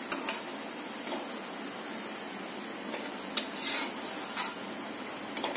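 Perforated steel skimmer scraping and clicking against an aluminium kadai a few times as fried gulab jamun balls are scooped out of hot oil, over a soft, steady sizzle of the oil.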